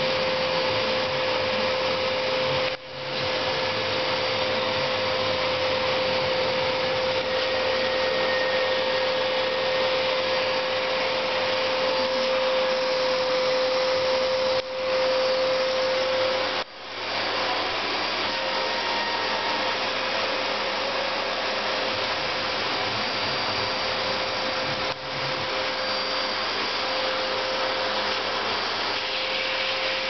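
Vacuum cleaner running steadily, a loud rushing noise with a steady hum under it. The sound drops out briefly a few times.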